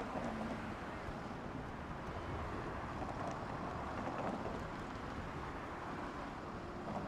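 Steady city street traffic noise, with cars passing close by.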